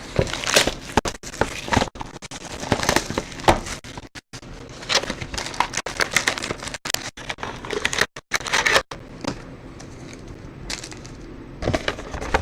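Plastic wrapping and card packs crinkling and tearing as a box of trading cards is opened, in irregular bursts of crackling that thin out to a few clicks about nine seconds in.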